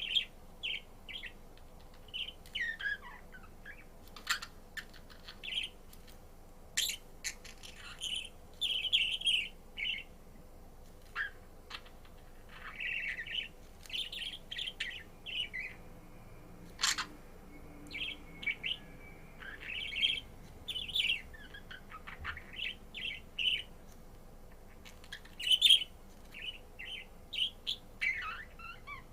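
Budgerigar chirping and warbling in short, irregular runs of high calls, with a few sharp clicks mixed in. A faint steady hum sits underneath.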